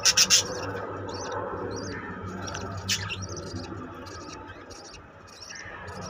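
Budgerigars chirping: short high chirps repeated a few times a second, with a loud rasping call right at the start and another about three seconds in, over a steady low hum.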